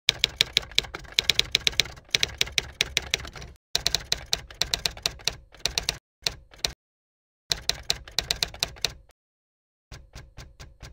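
Typewriter keystrokes clacking in quick runs as a line of text is typed out, with short pauses between the runs and a fainter run near the end.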